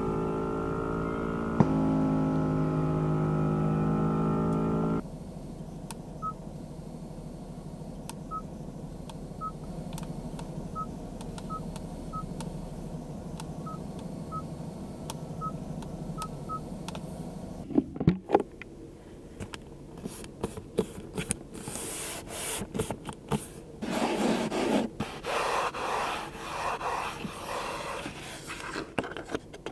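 A steady humming tone that cuts off about five seconds in. Then about a dozen short, high beeps over ten seconds from the Genesis G90's touch-sensitive control panel as it is pressed. Then clicks and rubbing, scraping sounds as the center-console armrest lid and storage box are handled.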